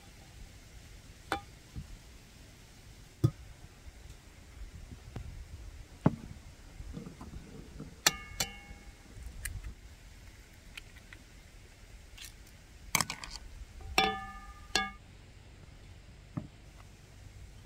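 Kitchen handling sounds: scattered taps and knocks, with about four ringing clinks of dishes, mostly in the second half.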